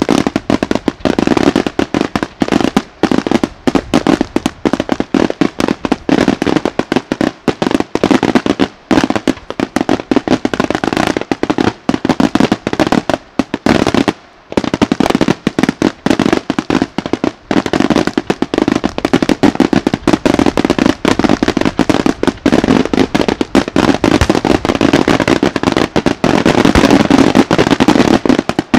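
Daytime aerial fireworks bursting in a dense, rapid string of bangs and crackle. There is a short break about halfway through, and the reports get louder near the end.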